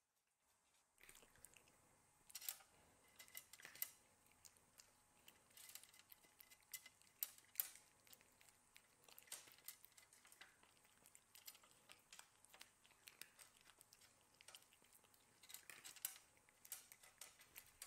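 Cats chewing dry kibble from metal bowls: faint, irregular crunches and clicks, starting about a second in.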